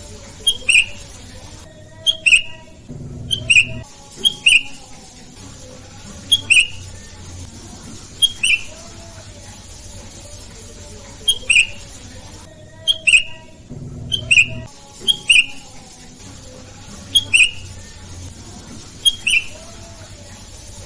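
Sooty-headed bulbul (kutilang) calling: short, sharp paired notes repeated about every two seconds.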